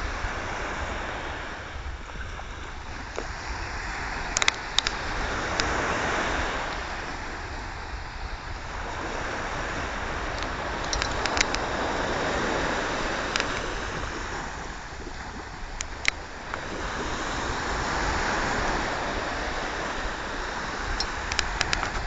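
Sea waves breaking on the shore, a hiss that swells and fades every five or six seconds, with a few brief sharp clicks in between.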